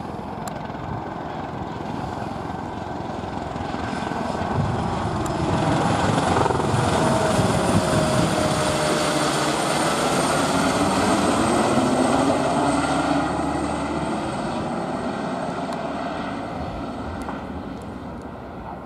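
Airbus EC120B helicopter, its single Turbomeca Arrius turboshaft and rotors, flying a low display pass. The rotor and turbine noise grows louder as it comes close, about six seconds in, drops in pitch as it passes, then fades as it flies away.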